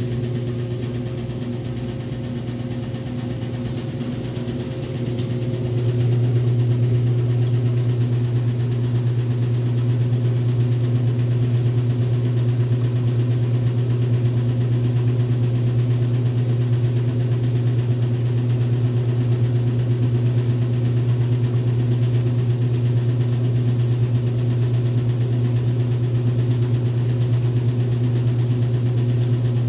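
1962 RCA Whirlpool LJA70 washing machine running with a steady low motor hum, which grows louder about six seconds in and then holds.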